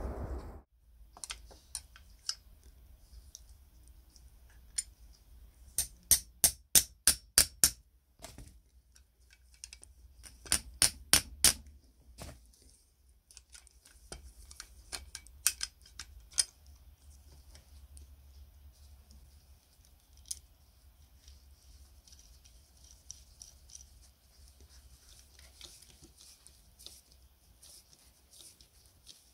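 Sharp clicks and taps of small metal parts of a clay-pigeon trap being handled and fitted by hand. Two quick runs of loud clicks, about four a second, come about six seconds in and again about ten seconds in, with scattered lighter clicks between them, over a faint low hum.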